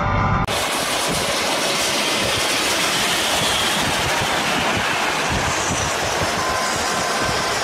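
Loud, steady rush of road and wind noise from moving traffic, starting abruptly about half a second in, mixed with a metallic scraping rattle. The rattle fits a smashed SUV's loose rear part dragging along the asphalt.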